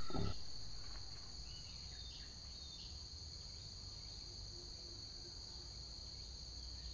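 Insects droning steadily in a high pitch, with a brief low knock at the very start.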